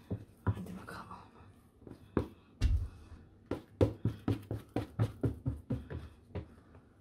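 Oiled hands patting and slapping soft, risen bread dough: a run of short wet slaps, with a heavier thump about a third of the way in, then quicker pats at about three a second.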